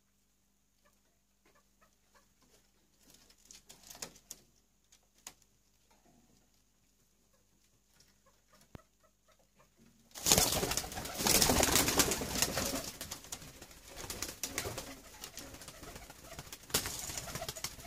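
Teddy pigeons in a loft: faint scattered clicks and scuffles at first, then, about ten seconds in, a sudden loud stretch of pigeon cooing mixed with noisy rustling that carries on to the end.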